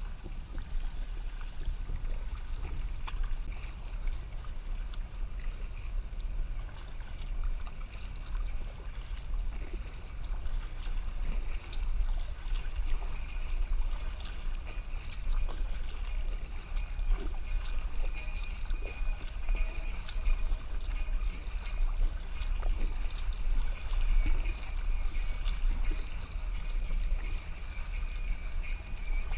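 Kayak being paddled: water swishing and lapping at the bow, with small drips and splashes from the paddle blades, over a fluctuating low rumble of wind on the microphone.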